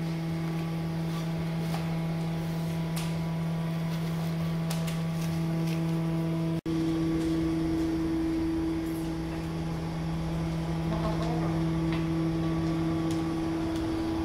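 A steady mechanical hum at an unchanging pitch, with faint scattered clicks. The sound cuts out for an instant about halfway through.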